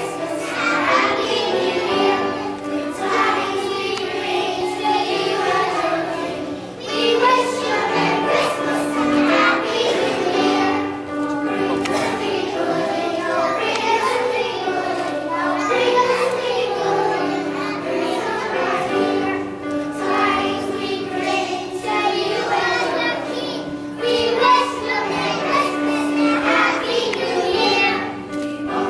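A group of preschool children singing a Christmas song together, with musical accompaniment.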